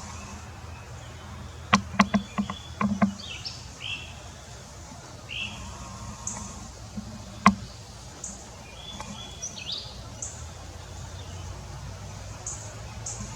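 Wild birds chirping in short calls throughout. A quick run of sharp clicks comes about two seconds in, and a single loud sharp snap comes about seven and a half seconds in.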